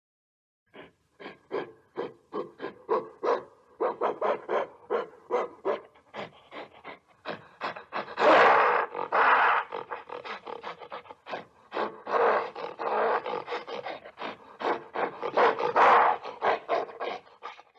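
Gorilla vocalising: a rapid train of short panting calls, about three a second at first and then quicker, broken by several louder, longer calls about halfway through and near the end.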